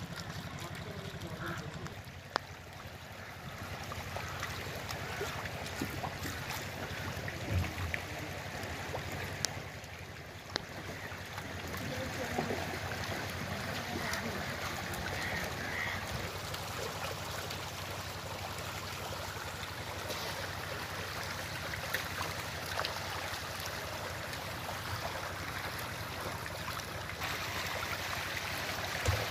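Steady low hum of a water pump's motor running, with water flowing, a few sharp taps and faint voices in the background.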